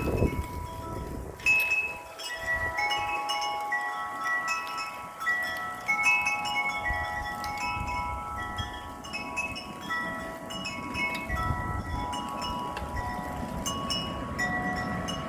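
Wind chimes ringing continuously in gusty wind, many overlapping tones struck and fading, with wind rumbling on the microphone in gusts near the start and again later.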